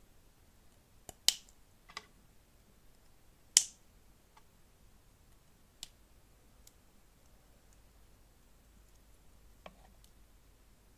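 Plastic LEGO pieces snapping and clicking together as sections are pressed onto each other, with two sharp loud snaps and several fainter clicks scattered between.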